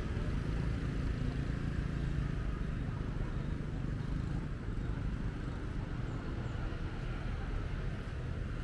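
Steady city street traffic, a continuous mix of motorbike and car engines running.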